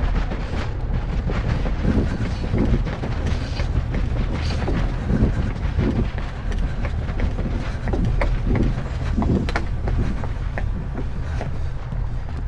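Loud, steady low rumble with irregular clicks and knocks throughout.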